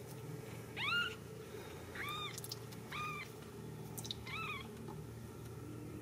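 Very young Ragdoll kitten mewing: four short, high-pitched cries about a second apart, each rising then falling in pitch, the first the loudest.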